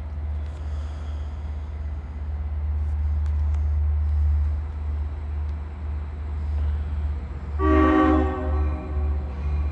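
Low rumble of an approaching train, growing louder, then the train's multi-note horn sounding about three quarters of the way in: one strong blast followed by shorter, weaker ones, typical of a train sounding for a grade crossing.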